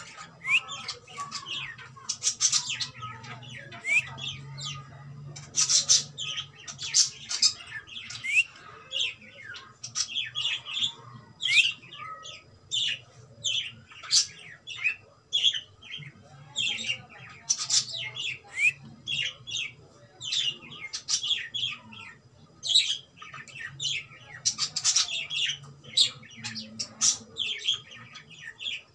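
Cockatiel chirping and squawking in a near-continuous string of short, high calls, a few a second.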